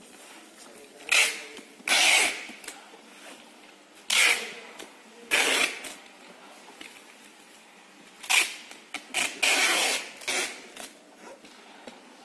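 Packing tape ripping off a handheld tape dispenser as a cardboard carton is sealed: a series of about seven short rips, each under a second, spread unevenly through the stretch.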